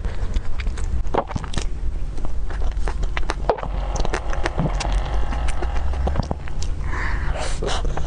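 Close-miked eating sounds: a metal spoon scooping whipped cream from a paper cupcake liner, with wet mouth clicks and smacking as the cream is eaten. A steady low hum runs underneath.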